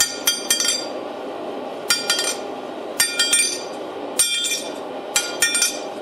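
Hand hammer striking hot steel on an anvil, blows coming in quick groups of two to four about once a second, each with a clear metallic ring. A steady rushing sound from the forge runs underneath.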